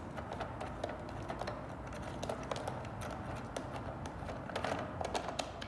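Light, irregular clicks and small plastic knocks as the chainsaw's air filter cover is opened and handled, with a few quick clusters of clicks.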